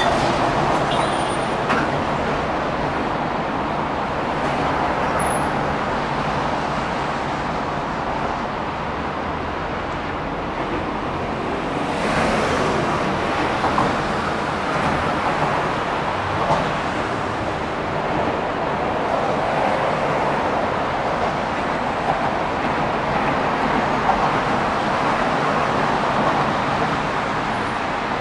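Steady traffic noise from an elevated highway: the tyres and engines of passing cars. About halfway through, a louder vehicle goes by, its pitch falling as it passes.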